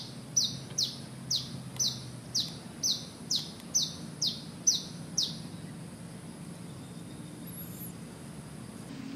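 A bird calling: about a dozen sharp, downward-slurred high notes, roughly two a second, that stop about five seconds in, over a steady low hum.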